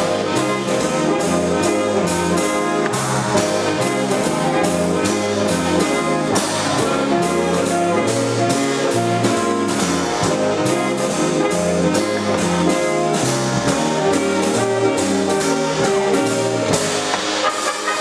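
Live big band playing swing: saxophones and brass over a drum kit keeping a steady beat, with a stepping bass line underneath.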